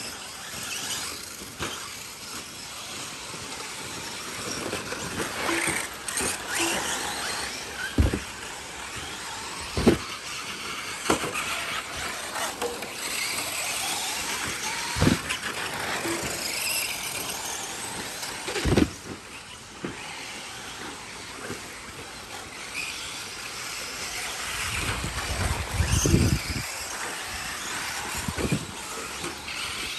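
Radio-controlled off-road cars racing on a dirt track: a steady hiss of motors and tyres on loose dirt, broken by several sharp knocks, the loudest a low thud near the end.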